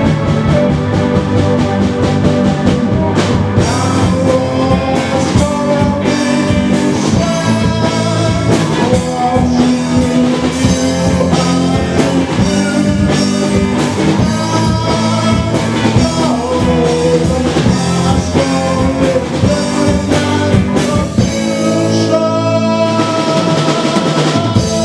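Live rock band playing, with a drum kit, keyboard and a man singing into a microphone. About 21 seconds in the bass drops away for a couple of seconds before the full band comes back in.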